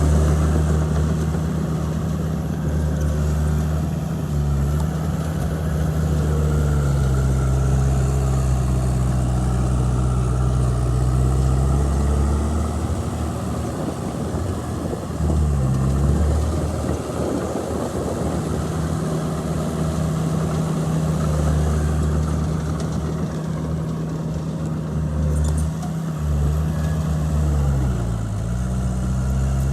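Heavy diesel engine of earthmoving machinery running under load, with a steady low note that sags briefly and recovers about three times.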